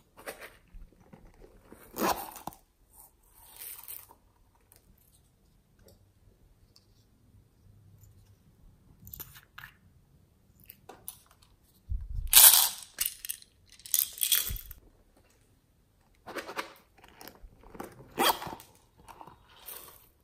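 Glitter, sequins and sprinkles shaken and tapped out of small plastic containers onto slime, with scattered rattling, rustling and clicking. The loudest bursts come about halfway through.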